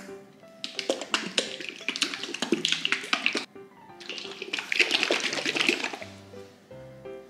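Yogurt drink sloshing inside its bottle as it is shaken hard, in two bouts of quick splashy strokes, the first about three seconds long and the second about two. Light plucked-string background music plays underneath.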